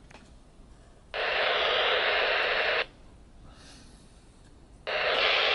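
Technisonic TiL 91-DE airband AM transceiver's loudspeaker hissing with static twice: the squelch opens on a received signal for under two seconds about a second in, then opens again near the end. Each burst starts and cuts off abruptly.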